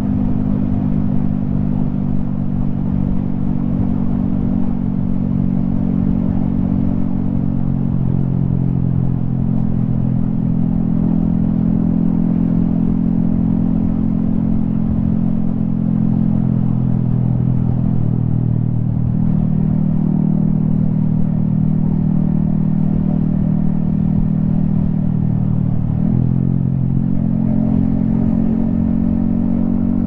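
Yamaha XSR155's single-cylinder four-stroke engine running under way, heard from the rider's helmet. The engine note holds mostly steady, shifting briefly in pitch three times.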